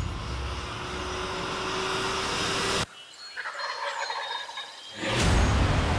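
Wild turkey gobbling, with small birds calling. The sound cuts abruptly about three seconds in to a quieter stretch of birdsong, then comes back loud near the end.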